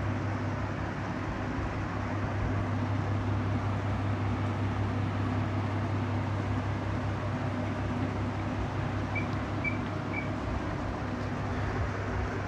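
Steady low hum and hiss of background room noise, with three short, faint high-pitched beeps about three-quarters of the way through.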